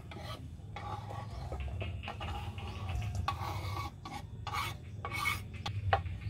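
Kitchen knife scraping chopped baby corn, carrot and green beans off a wooden cutting board into a stainless steel bowl: a series of rasping strokes with pieces dropping into the bowl, and a sharp tap near the end.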